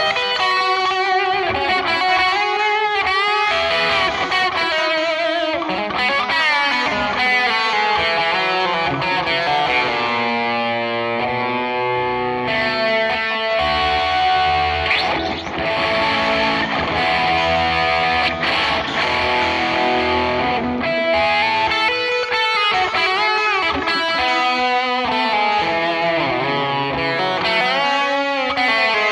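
Telecaster-style electric guitar played through a wet-dry-wet amp rig: lead lines of quick single notes with string bends, mixed with chordal passages.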